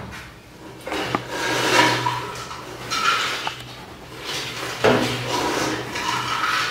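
A dog's rasping, congested breathing: a few slow, noisy breaths, each with a low buzz and a faint whistle.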